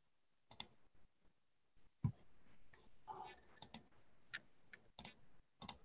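Near silence with faint, scattered clicks and ticks at irregular intervals.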